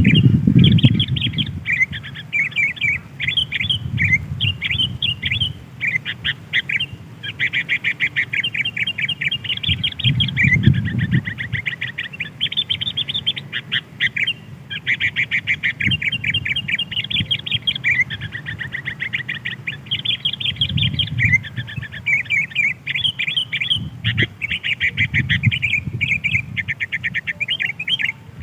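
Sooty-headed bulbuls (kutilang) calling without pause in fast, bubbly chattering phrases that stutter and repeat, as a lure call for wild birds. A low rumble rises and fades a few times beneath the calls.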